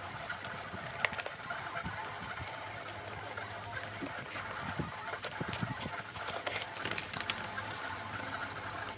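Plastic squeegee rubbing and scraping across a holographic laminate film, smoothing it onto a printed sticker sheet, with the film rustling and a run of irregular short scrapes and clicks.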